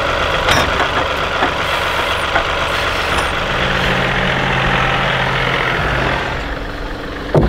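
John Deere compact tractor's diesel engine running while its front loader works a brush grapple. A steadier low tone sets in about halfway through and holds for a few seconds.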